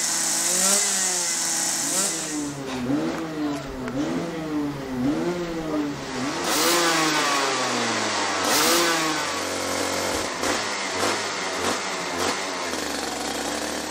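Racing kart engine revving over and over, its pitch climbing and dropping about once a second, then falling away in one long drop and running lower and steadier near the end.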